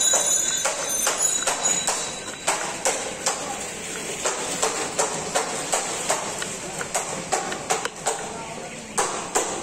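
Knife blade chopping red onions on a wooden cutting board, a quick run of sharp knocks, about three or four a second at first and then less even.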